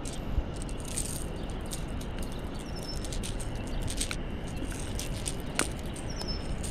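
Riverside ambience: a steady low hiss with scattered small clicks and rattles, and two brief high bird chirps, one about midway and one near the end.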